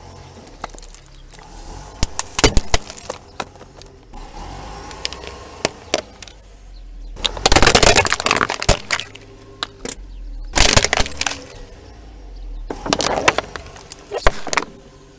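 Plastic bottle and plastic toys cracking and crunching as a slowly rolling car tyre crushes them against paving stones. The cracking comes in several bursts of sharp snaps, the loudest and densest about halfway through, over a low steady engine hum.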